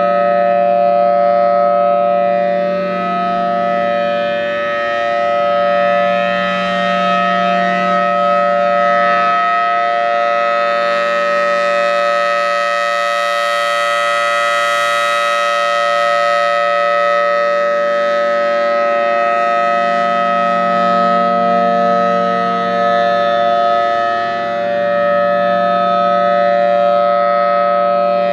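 Federal Signal Thunderbolt 1003 outdoor warning siren sounding its Alert signal: a loud steady chord with no rise or fall in pitch. Its loudness slowly swells and eases as the rotating siren head turns.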